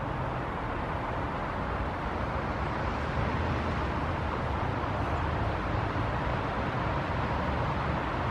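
Steady background rumble of distant road traffic, with no bird calls standing out.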